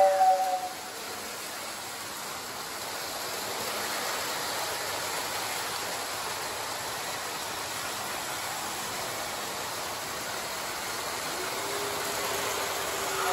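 A Lionel train's two-note steam whistle sound cuts off in the first second. Then comes a steady rushing noise of the model trains running around their track. A low steady tone comes in near the end.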